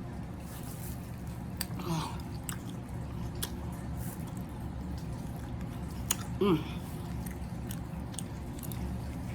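Close-miked chewing and mouth sounds of a person eating seafood, with scattered small clicks. A short vocal sound comes near two seconds and again about six and a half seconds in.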